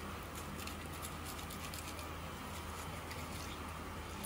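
Faint scratching and crackling of a filleting knife's tip cutting through fish scales and skin, going against the grain of the scales, over a steady low hum.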